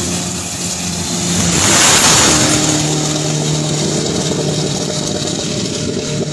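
Two diesel turbo Thai long-tail racing boats running flat out as they race past. The sound swells to its loudest about two seconds in with a rush of spray and engine, then the engine note drops a little and eases off as they move away.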